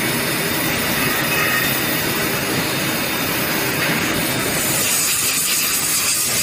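Steady machine-shop noise: machinery running with a continuous hiss.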